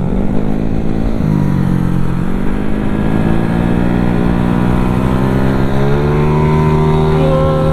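Automatic scooter engine under way, with wind rumbling on the microphone. The engine note drops briefly about a second in, then climbs steadily as it accelerates and holds high near the end.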